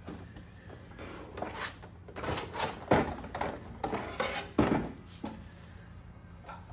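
Rigid black plastic packaging trays being handled: rustling and creaking plastic, with two sharp knocks about 3 and 4.5 seconds in as the trays are tilted off a wooden turntable and set down on a table.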